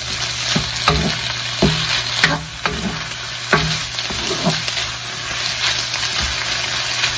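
Chicken strips frying in oil in a wok, stirred with a wooden spoon: a steady sizzle with short scrapes and knocks of the spoon against the pan, coming every half second to a second for the first four seconds and fewer after that.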